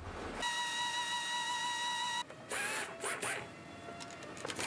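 A handheld power screwdriver whines at a steady pitch for about two seconds, cuts off, then gives shorter whirs that slide up and down in pitch, ending in a few clicks. Background music plays under it.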